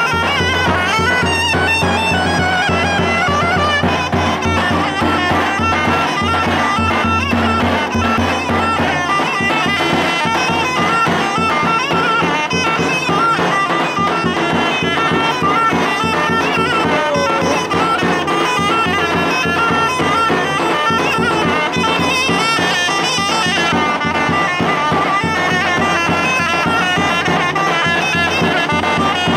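Folk dance tune played on a loud reed wind instrument, a continuous piping melody without pause.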